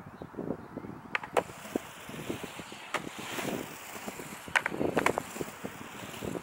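Longboard riding a concrete mini-ramp: the rumble of urethane wheels rolling on concrete swells as it drops in and crosses the flat bottom. Sharp clacks of the board and trucks knocking come about a second in, again around three seconds, and in a quick cluster near the end.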